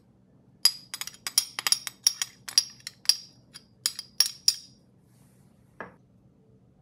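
A spoon tapping and scraping against the rim of a small ceramic bowl: a quick run of about fifteen sharp, ringing clinks over some four seconds as a paste is knocked out, then one duller knock near the end.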